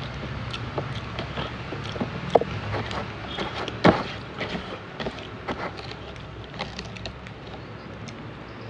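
Eating by hand from a cardboard box: chewing and small mouth clicks with scattered light taps and rustles of fingers on the box, and two sharper knocks about two and a half and four seconds in, over a steady low hum.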